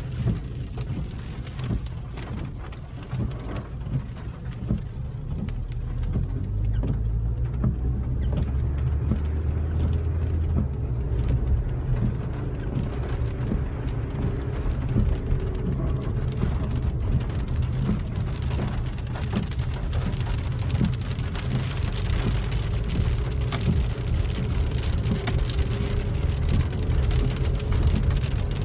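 Heavy rain falling on a car's roof and windshield, heard from inside the cabin as a dense patter of drop hits over a steady low rumble. The low rumble swells for several seconds about six seconds in.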